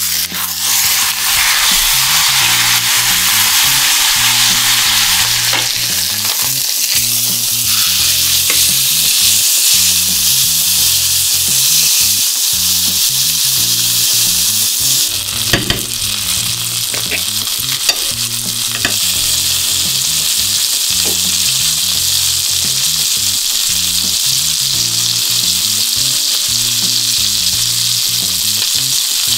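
Thick ribeye steak searing in a hot oiled frying pan to build a crust: a loud, steady sizzle that starts as the meat goes in, with a few sharp clicks of metal tongs against the pan about halfway through as the steak is handled.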